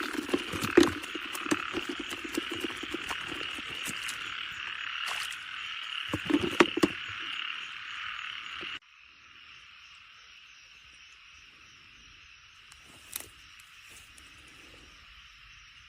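A chorus of frogs calling in a wet field, with scattered clicks and knocks over it. About nine seconds in the level drops suddenly and a quieter chorus carries on.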